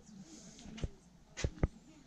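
Footsteps on a dirt path: a few sharp, uneven steps from about the middle on, over faint background noise.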